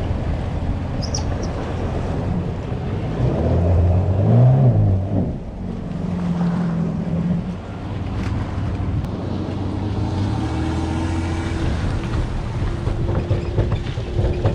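Low engine hum with wind rumble on the mic as a jetski is loaded onto its trailer and hauled up a boat ramp; the engine sound swells and rises in pitch about four seconds in, then settles to a steadier hum.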